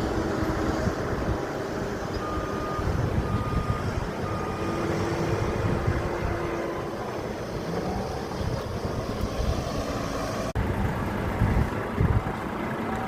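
Motor vehicle running with a steady low rumble, and three short beeps about a second apart a little over two seconds in.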